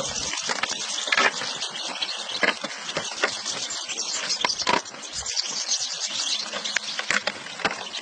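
A great many European goldfinches together: a dense, unbroken chatter of high chirps and twitters, mixed with many short sharp clicks and flutters.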